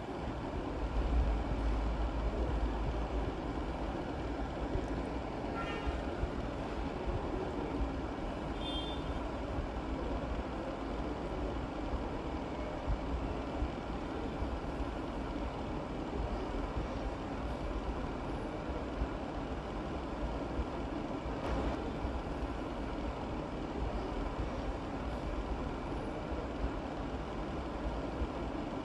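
Steady low rumbling background noise with an even hiss above it, heaviest in the first few seconds.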